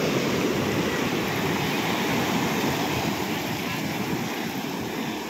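Sea surf washing up over the sand at the water's edge: a steady rush of foaming water that eases slightly toward the end.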